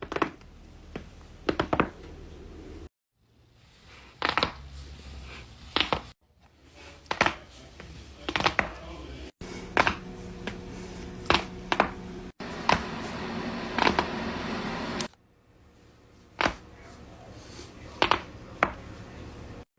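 Human joints cracking: a series of sharp, short pops and cracks, singly or two or three in quick succession, spread across several separate clips.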